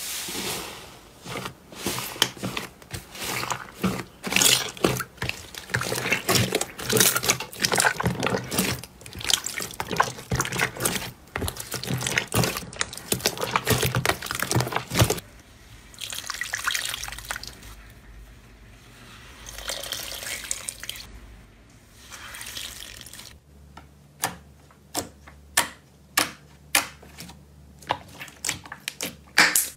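Hands squeezing and kneading slime, making wet, sticky squelching sounds. A dense crackling of clicks runs through the first half, softer squishing follows, and separate sharp pops come near the end.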